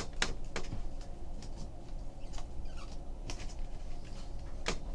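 Light, scattered clicks and taps of stiff chrome trading cards being handled and flicked through by hand, over a steady low background hum.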